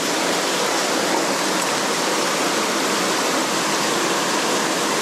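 Mountain stream water rushing, a steady, even rush with no breaks.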